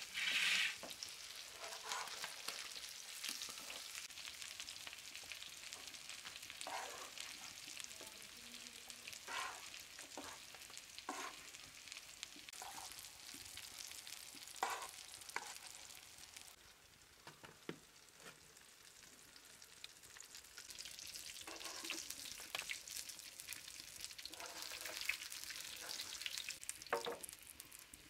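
Hot frying oil sizzling around pan-fried small bluefish and horse mackerel, with frequent short clinks and scrapes of a metal utensil against the pan and a steel tray as the fish are moved. The sizzle drops away a little past halfway and picks up again a few seconds later.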